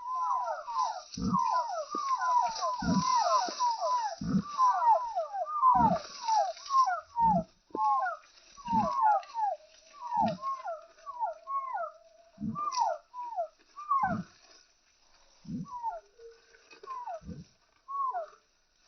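Chickens calling in a rapid run of short, falling chirps that thin out toward the end, with a low thump about every second and a half.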